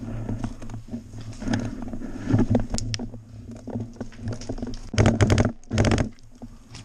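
Scattered single shots from game guns, then two short rapid-fire bursts about five and six seconds in, the first the loudest.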